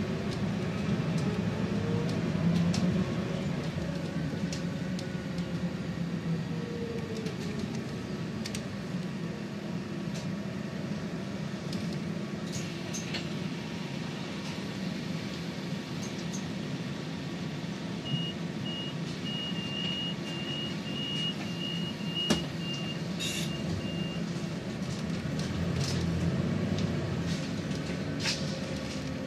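Cabin sound of a Scania Citywide 12 LF city bus with a CNG engine under way: a steady engine and drivetrain rumble whose pitch rises and then falls over the first few seconds, with scattered clicks and rattles. About two-thirds of the way through, a run of short high beeps sounds for several seconds.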